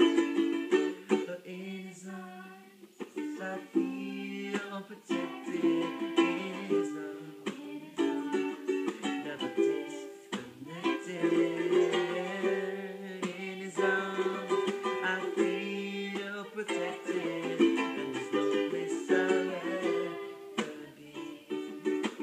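Ukulele strummed in steady chords, with a man singing along to it.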